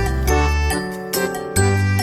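Background music: a light melody of short, chiming notes over sustained bass notes.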